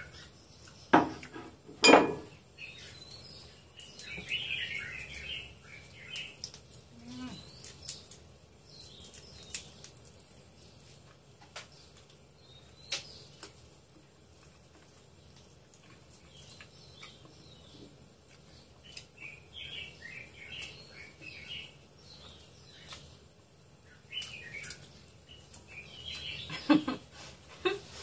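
Close-up mukbang eating sounds of chicken feet: wet chewing, sucking and lip smacking in short repeated bouts. Scattered clicks against a ceramic bowl, with two louder knocks about one and two seconds in.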